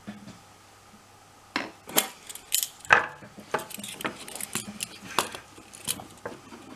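Small metal parts and tools clinking and tapping together: an irregular string of sharp clicks, some ringing briefly, starting about a second and a half in.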